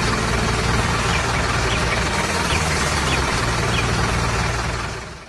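Heavy truck engine running steadily under a dense, hiss-like noise, fading out just before the end.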